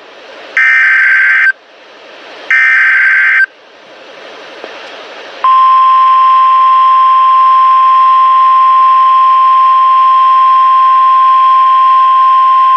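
NOAA Weather Radio alert header: two SAME digital data bursts of about a second each, a second apart, with hiss rising in the gaps. About five seconds in, the steady 1050 Hz warning alarm tone starts and holds, signalling a warning-level alert.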